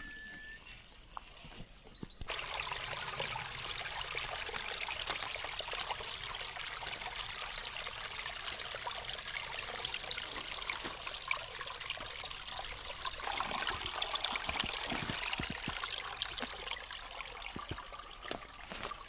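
Small forest brook trickling, a steady rush of running water that starts abruptly about two seconds in.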